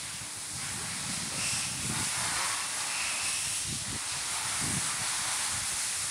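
Wind on the microphone: a steady hiss with irregular low rumbling gusts.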